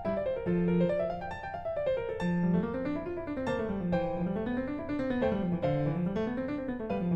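Background piano music: runs of notes climbing and falling over and over.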